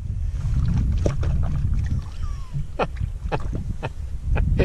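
Northern pike thrashing loose in the bottom of a canoe: a handful of sharp knocks and slaps against the hull, irregularly spaced, over a steady low rumble of wind on the microphone.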